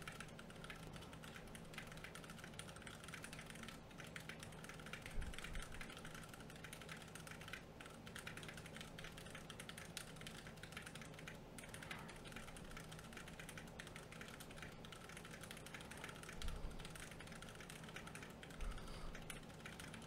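Fast touch-typing at about 129 words per minute on a Ducky Mini 60% mechanical keyboard with Cherry MX Brown switches in a solid aluminium case: a faint, continuous rapid patter of key clicks, with a few duller knocks.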